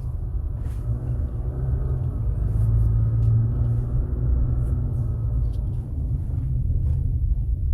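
Toyota RAV4's steady low road and drivetrain rumble, heard from inside the cabin while driving and braking, with a faint whine in the middle. The brake hum the car was brought in for is absent: the chamfered brake pads appear to have cured it.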